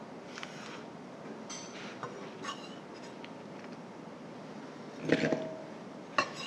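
Kitchen knife trimming okra on a wooden cutting board: a few light taps and scrapes. About five seconds in, a louder clatter as cut okra is tipped into a glass bowl, then a sharp tap near the end.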